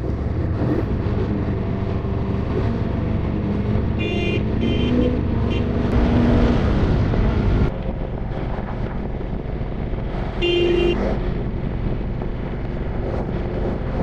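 Motorcycle engine running under throttle, its pitch climbing slowly until it drops off abruptly about eight seconds in. A horn beeps three times in quick succession around four to five seconds in, and once more near eleven seconds.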